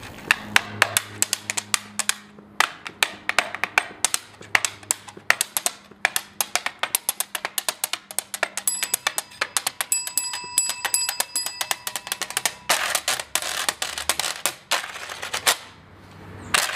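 Washboard played with metal thimbles on the fingertips: rapid clicking taps on the corrugated ribs, with longer raspy scrapes across them near the end. The bell mounted on the board rings about nine seconds in.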